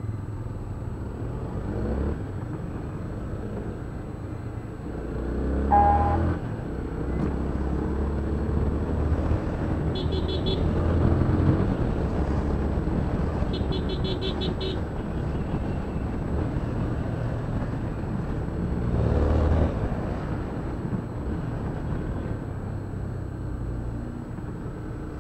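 Honda CB300's single-cylinder engine running through slow city traffic, revving up about six seconds in and again near twenty seconds, with surrounding car traffic. Two short high beeps come about ten and fourteen seconds in.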